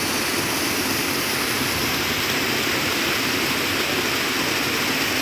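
Small waterfall on a rocky mountain stream, the water pouring steadily over the rocks with an even, unbroken rush.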